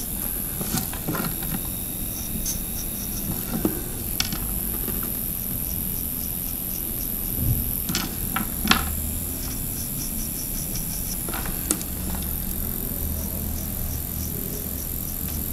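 Electric nail drill running steadily with a fine pointed bit, a high whine with a few light clicks as the bit works the dead skin along the sides of a fingernail.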